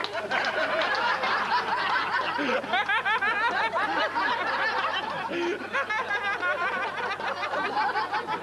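A crowd of people laughing hard together, many voices overlapping, with rapid ha-ha-ha cackles, as the reaction to the punchline of a joke.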